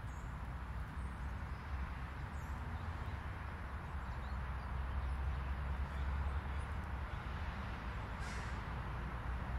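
Distant road traffic from a main road: a steady low rumble of combustion engines and tyres, swelling slightly about halfway through.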